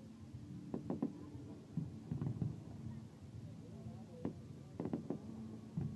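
Distant fireworks going off in irregular short bursts, with crowd voices murmuring underneath.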